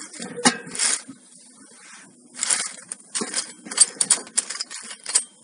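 Metal spatula stirring small oak sticks in a stainless wire basket over a charcoal grill: irregular wooden clatter and clicks of the sticks knocking against each other and the mesh while they toast.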